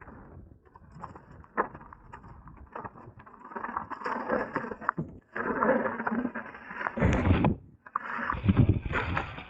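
Bicycle rolling over rough ground: tyre noise with scattered clicks and rattles, louder after about three seconds, and heavy low rumbles near the end.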